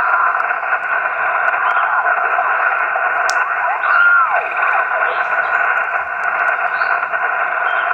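HF amateur transceiver's speaker hissing with sideband band noise while the tuning dial is turned in search of a clearer frequency. About four seconds in, a whistling tone glides up and back down as a signal is tuned past.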